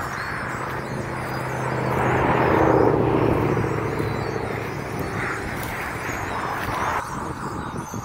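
A motor vehicle passing on the road, its engine and tyre noise swelling to loudest about three seconds in and then fading. The sound drops off abruptly about seven seconds in.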